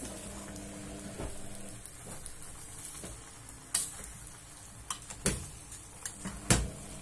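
Noodles being stirred and tossed in a stainless steel pot on a gas stove, with a soft sizzle. In the second half the utensil knocks sharply against the pot about five times, loudest near the end.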